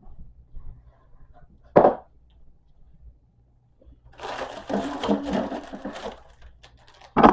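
Frozen food packages being handled while a freezer is emptied: a sharp knock, then about two seconds of rustling packaging, then another knock near the end.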